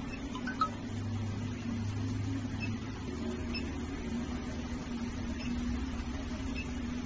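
Steady low electrical hum of a strap-cutting machine running, with one small click about half a second in.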